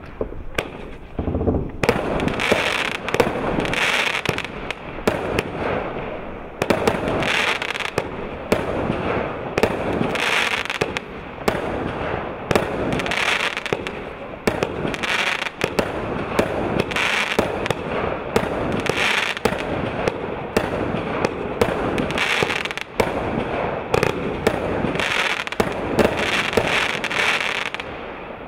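The 'Wonder World' consumer firework going off shot after shot: sharp launch pops over a continuous crackle and hiss, swelling louder every two to three seconds.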